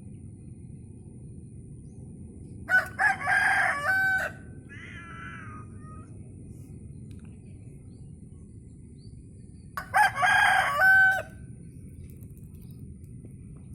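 A rooster crowing twice, each crow lasting about a second and a half, the two crows some seven seconds apart, with a shorter, fainter call just after the first. A steady low rumble runs underneath.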